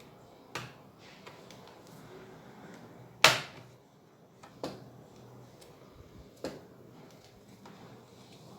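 Plastic retaining clips of a laptop's bottom cover snapping loose as it is pried open with a plastic tool: four sharp snaps, the loudest about three seconds in, with smaller ticks between.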